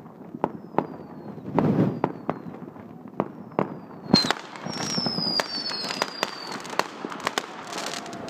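New Year's fireworks going off all around: a steady scatter of bangs and crackling, with several whistling rockets whose whistles slide down in pitch. The loudest bangs come about 2 and 4 seconds in.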